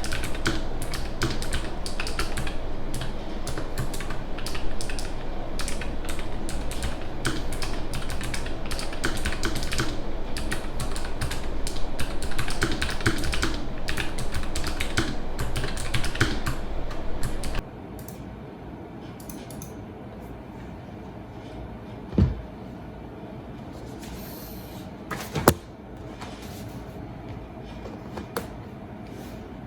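Typing on a Nuphy Air 96 low-profile wireless mechanical keyboard: fast, dense key clicks. About two-thirds of the way through the typing stops abruptly, leaving a quieter stretch with a couple of isolated knocks.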